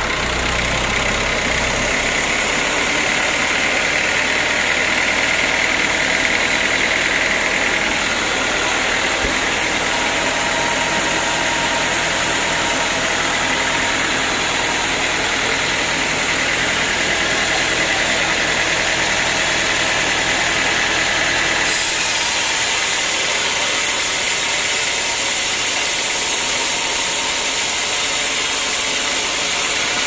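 Stationary diesel engine powering a band sawmill, running steadily with a constant mechanical din. About two-thirds of the way in, the low engine note drops away and the sound shifts higher.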